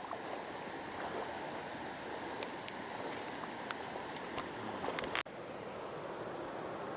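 River current running steadily, a constant rush of water, with a few faint ticks over it. Just after five seconds in there is a sharp click and a momentary dropout before the water sound resumes.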